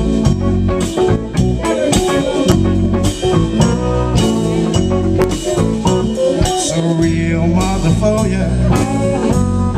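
Live blues band playing loud and amplified, with electric guitar, electric bass, keyboard and drum kit keeping a steady beat.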